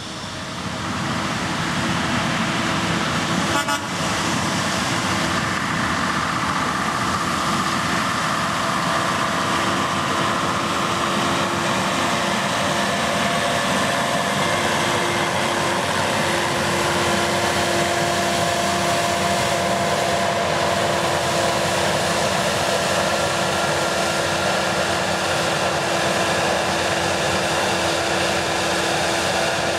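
Hunslet diesel rack locomotive working as it pushes a passenger carriage uphill: a steady engine drone with a held hum, swelling over the first couple of seconds and then holding level.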